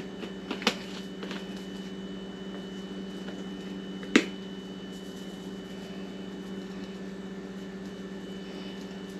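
A steady low electrical hum, with a few light sharp clicks in the first second and one louder click about four seconds in.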